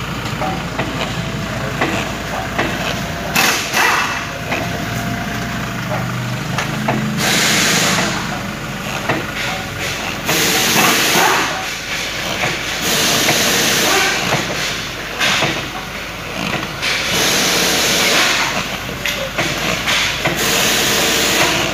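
Repeated bursts of hissing, each a second or two long and coming every few seconds, over the steady noise of a running vehicle.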